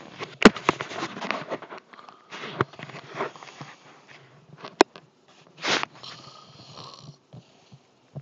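Snoring in irregular noisy breaths, broken by sharp clicks, two of them louder than the breathing, about half a second in and just before the fifth second.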